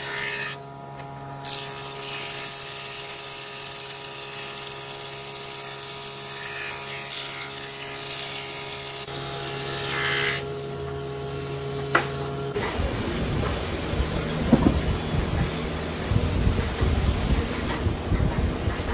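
Electric woodworking machines running: a thickness planer's steady motor hum with the hiss of its cutterhead planing a board, the hiss dropping away briefly about a second in, then a table saw running. For the last third the steady hum gives way to an uneven, rougher noise with sharp knocks.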